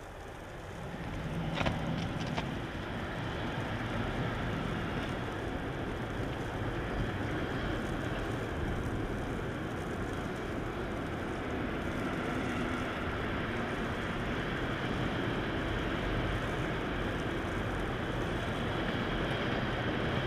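Freight train of container wagons passing at speed: a continuous rolling noise of wheels on rail that builds over the first couple of seconds and then holds steady, with a few sharp clanks about two seconds in.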